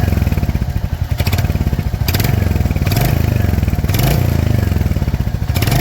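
Royal Enfield Hunter 350 single-cylinder engine running, with a few sharp clacks standing out over the steady firing beat. It is a rattle that the owner hears near the silencer, and that a showroom mechanic diagnoses as tappet noise: valve clearance needing adjustment.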